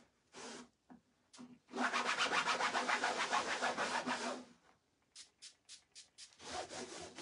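A paper towel rubbed hard over a textured burlap board in fast back-and-forth scrubbing strokes, working sprayed dye into the surface. The scrubbing is loudest in the middle, then after a short pause comes a quick series of short strokes before the rubbing picks up again.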